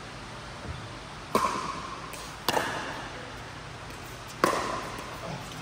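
Three hollow hits of a pickleball paddle on a plastic pickleball in a rally, each a sharp pock with a short ringing tail, echoing in a large indoor court hall.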